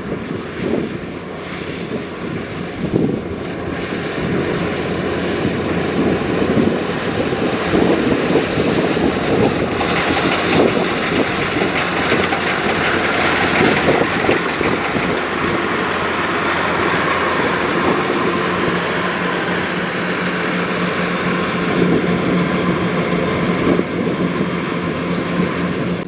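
Kubota DC105X rice combine harvester running while it cuts a rice crop: a steady diesel engine drone mixed with the noise of the working machinery. About ten seconds in the sound becomes louder and brighter, and then holds steady.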